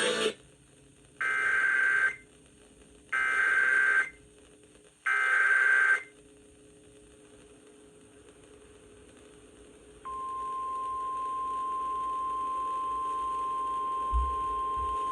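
Emergency Alert System header: three warbling digital data bursts, about a second each with a second's gap between them, encoding a National Weather Service flash flood warning. About ten seconds in, the steady single-pitch 1050 Hz NWS attention tone starts and holds, signalling the spoken alert that follows. A few low bumps come near the end.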